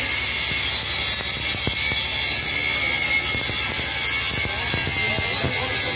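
Electric arc welding: the welding arc gives a steady, dense crackling hiss as a bead is laid on a welding test plate.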